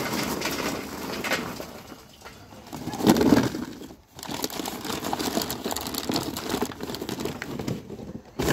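Charcoal briquettes pouring from a paper bag and clattering into a metal chimney starter. After about two seconds the pouring stops and the paper bag is handled and rolled shut, rustling, with a louder burst about three seconds in.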